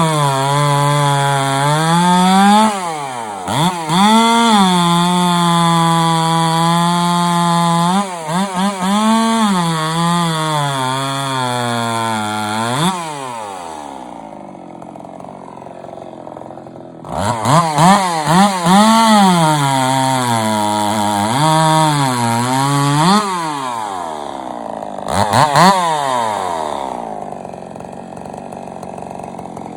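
Stihl MS-380 clone chainsaw's two-stroke engine revving hard in repeated blips and in holds at full throttle lasting several seconds. It drops back to a quieter idle about halfway through and again near the end.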